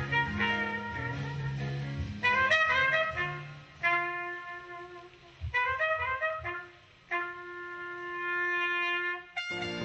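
Music with a single wind instrument carrying the melody in short runs of quick notes and long held notes, with brief pauses between phrases. Just before the end it cuts to a different, fuller piece of music.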